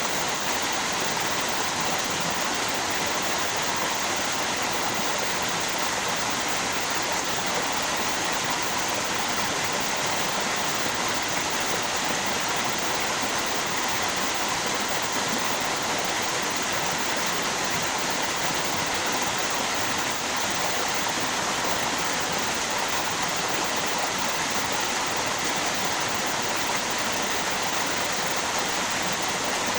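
Flowing river water and a waterfall, a steady, even rushing with no change.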